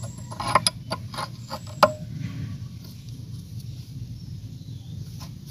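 A run of sharp metallic clicks and taps in the first two seconds, with one more near the end: a steel rod turning an improvised bolt-and-nut press that pushes a disc brake caliper piston back into its bore. A steady low rumble runs underneath.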